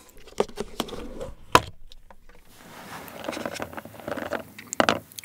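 Plastic lid of a Maltesers tub snapping and being prised off with a few sharp clicks, then fingers rummaging among the chocolate balls inside, a dense rattle of small clicks and rustles.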